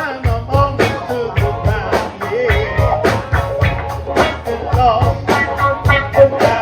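Gospel band playing live: drums keep a steady, quick beat under a wavering sung or lead melody line.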